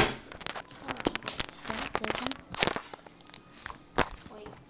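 White slime being pressed flat and pulled on a glass tabletop: irregular sticky crackling and tearing, with a few sharp pops.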